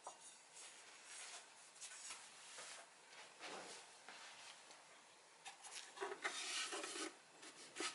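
Faint handling noises as a subwoofer cabinet is picked up and moved: light rubbing and soft knocks, busiest a little past the middle.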